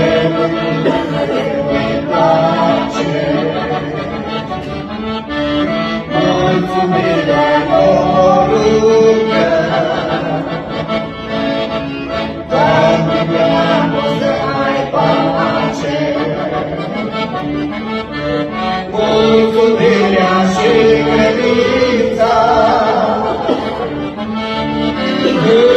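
A song of praise sung by a voice over accordion accompaniment, the accordion holding steady chords beneath the melody.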